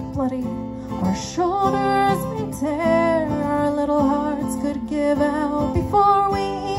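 A song with acoustic guitar accompaniment and a voice singing long, held notes.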